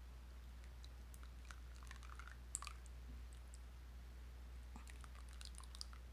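Thick satti sauce pouring in a thin stream onto satay skewers in a bowl: faint scattered small clicks and splats, with a sharper click about two and a half seconds in and another near the end, over a low steady hum.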